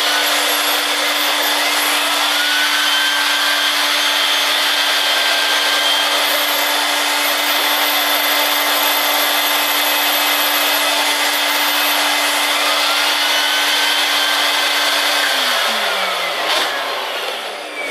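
Vacuum cleaner motor running steadily with a constant hum, then switched off about fifteen seconds in, its pitch falling as it winds down.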